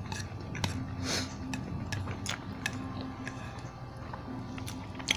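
Eating sounds at a table, scattered sharp clicks of chopsticks and chewing, over soft background music.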